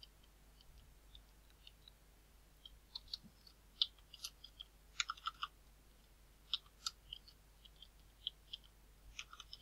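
Faint clicks of computer keyboard keys being typed in short, irregular runs.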